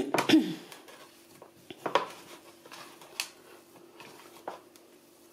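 Fingers kneading sticky no-bake cookie dough in a plastic bowl: faint handling sounds with a few light clicks of the bowl, about two, three and four and a half seconds in.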